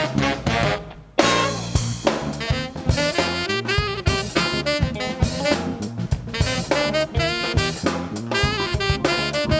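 Live funk band playing: a saxophone horn section over drum kit, bass and piano. Just before a second in the band drops out for a brief break, then comes back in together on a hard hit.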